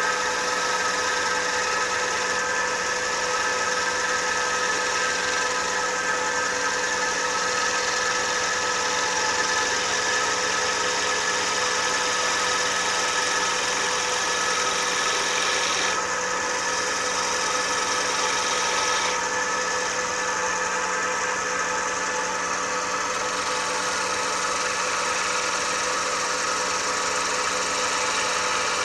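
Metal lathe running with a steady hum while a turning tool cuts a spinning wooden spoon blank, making a continuous hissing cut. The hiss thins for about three seconds about 16 seconds in, then comes back.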